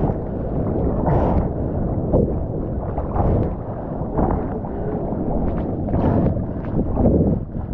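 Water splashing and churning close around a mouth-mounted GoPro Hero 9, in uneven surges about once a second.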